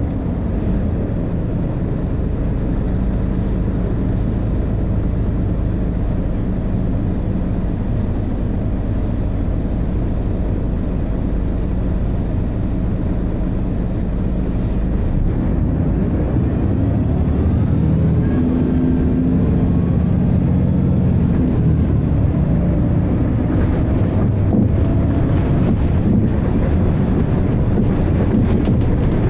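Volvo B6LE bus's six-cylinder diesel engine pulling hard with its ZF automatic gearbox. The engine note shifts about halfway through, then runs louder, with a faint high rising whistle at the change.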